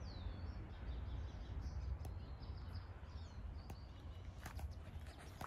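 Small birds chirping: short high chirps and quick falling notes, over a steady low rumble, with a few soft clicks near the end.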